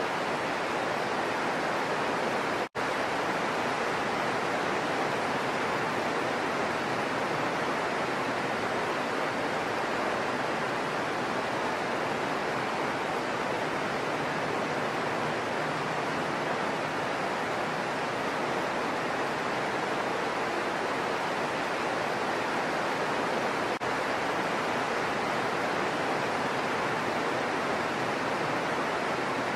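Heavy rain falling steadily, an even hiss without thunder, broken by a split-second gap about three seconds in.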